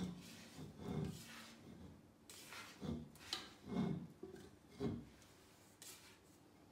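Risen bread dough being scraped and worked by hand out of a stainless-steel stand-mixer bowl: several dull rubbing knocks and scrapes against the metal, spread over about five seconds.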